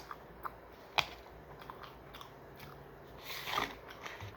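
Close-up eating sounds: chewing with sharp mouth clicks, the loudest about a second in, then a short noisy burst about three and a half seconds in.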